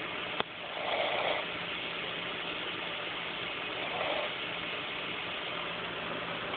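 Snoring: a snore swells about a second in, again about four seconds in, and once more near the end, roughly one breath every three seconds, over a steady hiss. A single short click comes near the start.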